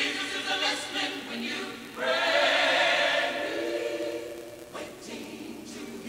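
Choir-like singing of long held notes, with a loud new sung phrase starting about two seconds in.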